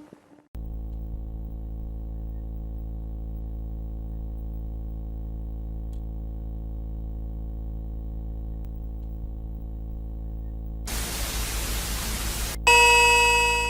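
Emergency-alert broadcast audio: a steady low electrical buzz, then a short burst of static hiss about 11 seconds in, then a loud ringing alert tone near the end that fades as it rings.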